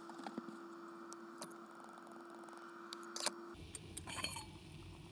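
Light clicks and metallic clinks of a camping cook pot and its lid being handled, over a faint steady hum. A low rumble sets in about three and a half seconds in, followed by a couple of brighter clinks as the lid goes on the pot.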